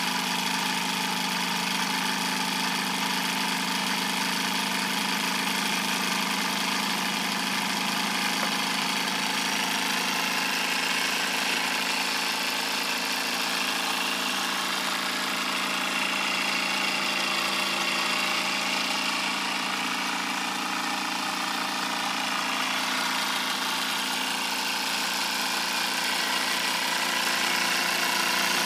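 Wilesco toy steam engine running steadily, its small oscillating cylinder and flywheel turning over under steam.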